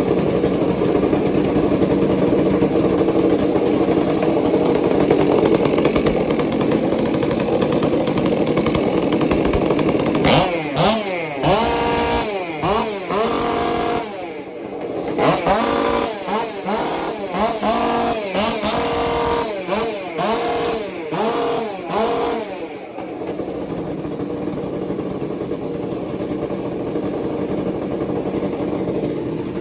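Ported Stihl MS 400 two-stroke chainsaw running flat out for about ten seconds. It is then revved up and down again and again, hitting the rev limiter a bit at the top, and drops to a lower, steady run near the end.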